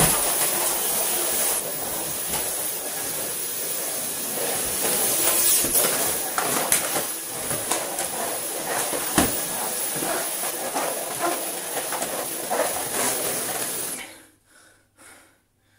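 Cordless Dyson stick vacuum running with a steady high-pitched hiss, with scattered knocks and clatters as it is pushed hurriedly over the floor; the sound cuts off about 14 seconds in.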